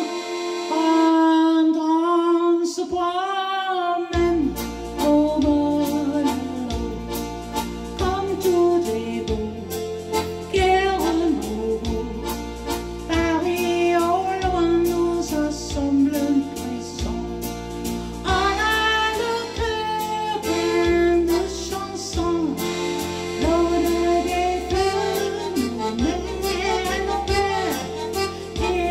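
An elderly woman singing a French song, accompanying herself on an electronic keyboard. A bass accompaniment comes in about four seconds in.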